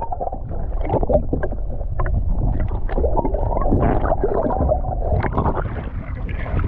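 Muffled rushing and gurgling of water heard through an underwater camera's housing as it is held in the sea, with many scattered small clicks and knocks.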